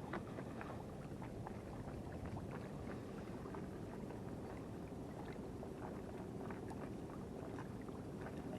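Sea water lapping and splashing close by, a steady wash dotted with many small splashes and ticks.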